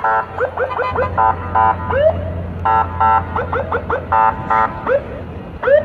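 Vehicle horns honking in short blasts, mixed with many quick rising siren chirps, over a low engine hum.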